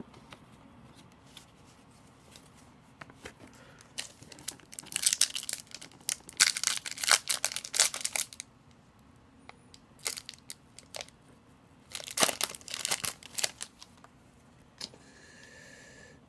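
Foil trading-card pack wrapper being torn open and crinkled by hand, in two spells of crackling: one about four seconds in lasting some four seconds, and a shorter one around twelve seconds.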